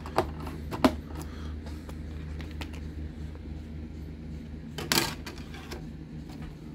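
Plastic DVD case and disc being handled: a few sharp plastic clicks in the first second, then a short scraping rustle about five seconds in as the disc goes to the player's open tray, over a low steady hum.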